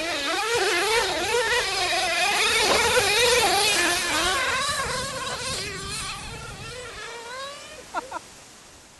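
Small two-stroke nitro glow engine of a BSD 908T 1/10 RC truck, revving up and down quickly under constant throttle changes as it drives. It fades away over the last few seconds, with two short sharp sounds near the end.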